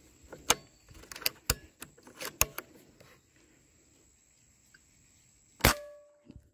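Air rifle fired once, about five and a half seconds in: a single sharp shot with a short ringing tail. Before it comes a run of light clicks and rustles.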